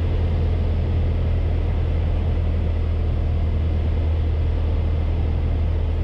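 Piper PA28 Warrior's four-cylinder Lycoming engine and propeller, a steady low drone heard inside the cockpit on short final approach.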